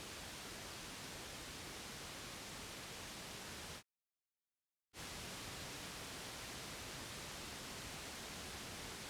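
Steady synthetic white-noise hiss of the kind played to soothe a sleeping baby. It cuts out to dead silence for about a second a little before halfway, then comes back unchanged.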